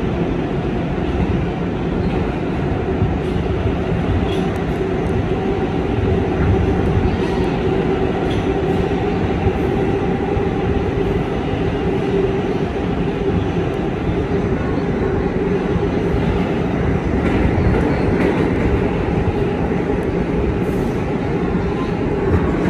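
Interior of a 2023 Kawasaki R211A subway car running at speed through a tunnel: a steady rumble of wheels on rail, with a constant tone held through it.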